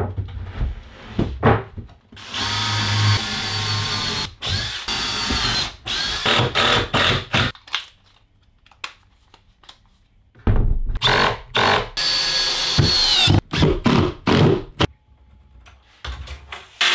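A plywood sheet knocks down onto the timber worktop frame, then a cordless drill drives screws into the plywood in a series of short runs, each a steady motor whine, some dropping in pitch as they stop.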